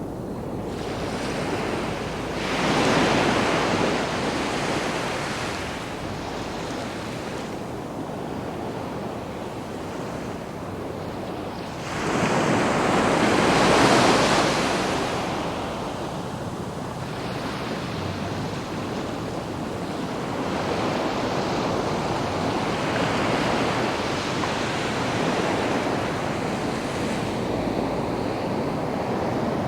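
Sea waves breaking and washing up on a sandy beach, rising and falling in slow swells, with two louder breakers about three and thirteen seconds in.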